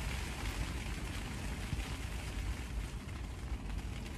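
Steady rain falling on the roof and windows of a car, heard from inside the cabin as an even hiss over a low rumble.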